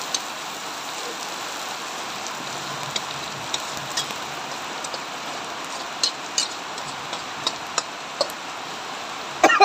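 Aromatics stir-frying in hot oil in a wok: a steady sizzling hiss, with scattered sharp clicks of the metal spatula against the pan and a louder clatter near the end.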